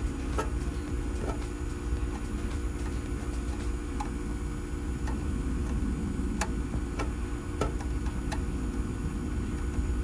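Scattered small sharp clicks of a screwdriver working the screw terminals on a circuit board, over a steady low hum.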